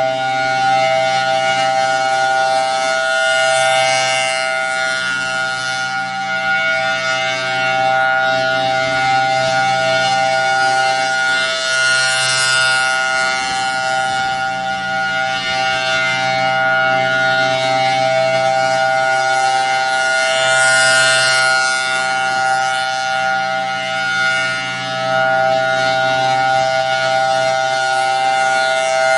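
Federal Signal Thunderbolt 1003 outdoor warning siren sounding the steady Full Alert signal: a loud, unbroken two-note wail held at one pitch. Its sound brightens and fades about every eight seconds as the rotating horn sweeps past.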